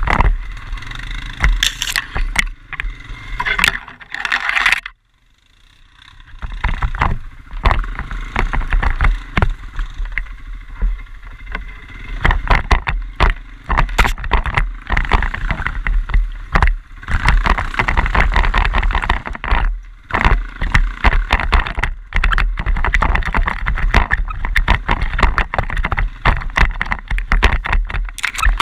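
Quad bike (ATV) being ridden, its engine running under a rough, crackling noise of wind and terrain on the microphone. The sound drops out for about a second around five seconds in, then picks up again.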